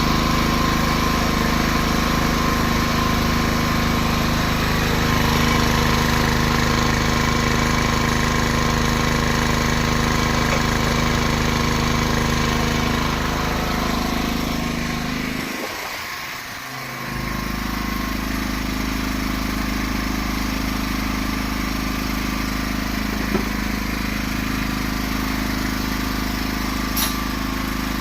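Small 3 kW four-stroke portable generator engine running steadily. About halfway through its low end briefly drops away, then it runs on slightly quieter at a slightly changed pitch.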